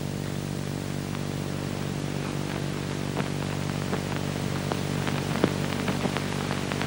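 Background noise of an old optical film soundtrack: steady hiss and hum, with scattered clicks and crackles that come more often toward the end.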